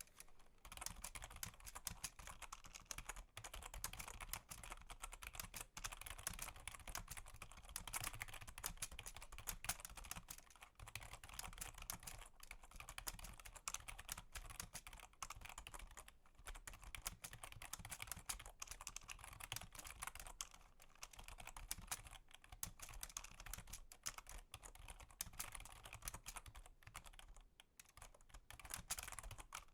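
Fast, continuous typing on a computer keyboard: a dense run of keystroke clicks, broken by a few short pauses.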